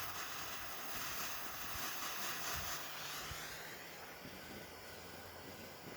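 Wind buffeting the microphone, a steady hiss that dies down about three seconds in.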